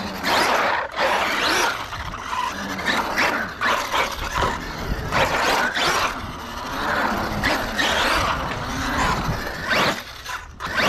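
Arrma Kraton EXB RC monster truck on 6S LiPo power: its brushless motor whines up and down in pitch with the throttle, and its tires skid and scrub on concrete. About ten seconds in the sound briefly drops as the truck goes airborne off a ramp.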